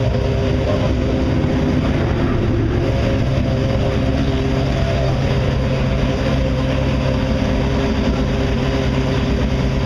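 Ferrari 458 Italia GT2 race car's V8 idling steadily while warming up, an even note with no revs.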